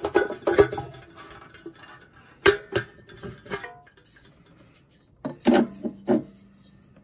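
Plastic auto-thread film reel being handled and fitted onto the projector's metal reel-arm spindle, giving scattered clicks and knocks. There is a sharp knock about two and a half seconds in and a cluster of knocks near the end.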